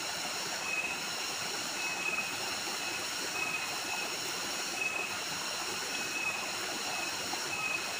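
Steady splashing rush of a small waterfall into a rocky pool, under several steady high-pitched insect tones. A short high chirp recurs about once a second.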